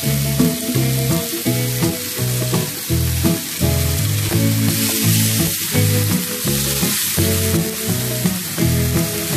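Steak sizzling in a hot ridged grill pan, the hiss swelling about five seconds in as a second steak goes into the pan, under background music with a steady beat.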